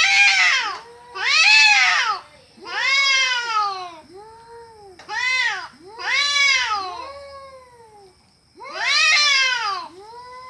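Cats caterwauling in a fight standoff: a series of long, drawn-out yowls that rise then fall in pitch, about six in all, with lower answering wails between them.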